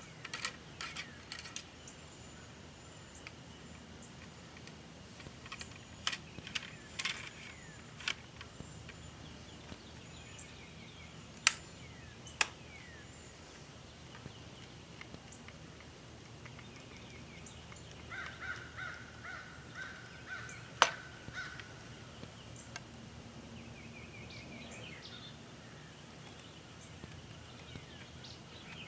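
Sharp clicks and taps from a flintlock shotgun being handled while loading: the ramrod in the barrel, then the lock. The two loudest clicks come about a second apart near the middle, with one more a few seconds later. Birds chirp faintly in the background.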